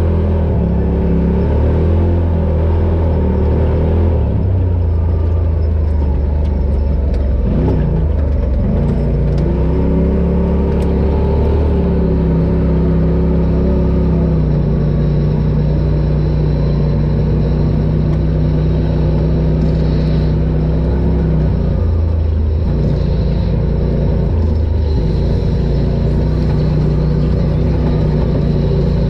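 Side-by-side UTV engine running under way, its pitch rising and falling with the throttle. The pitch drops and climbs back about eight seconds in, then holds fairly steady through the middle with another brief change near the end.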